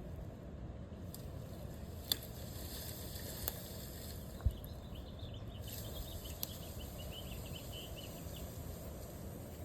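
Faint outdoor background noise: a steady low rumble with a few light clicks and taps, and a quick run of high chirps in the middle.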